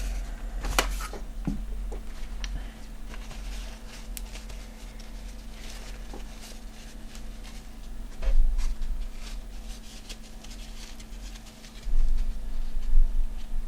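Hands working on a graphics card's heatsink and shroud: scattered small clicks and taps of plastic and metal parts, with dull low thumps about eight and twelve seconds in, over a faint steady hum.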